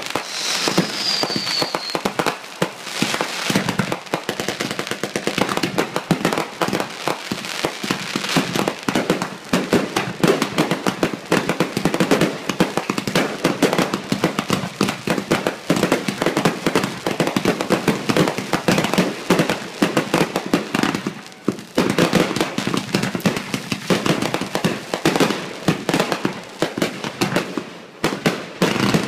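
Fireworks finale: a rapid, nonstop barrage of aerial bursts and crackling, with a short falling whistle near the start. It eases briefly about two-thirds of the way through and again near the end.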